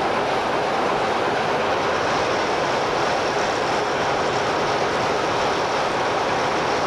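Class 44 'Peak' diesel locomotive's Sulzer twelve-cylinder engine running steadily while the locomotive stands with its train. A faint higher whine joins about two seconds in.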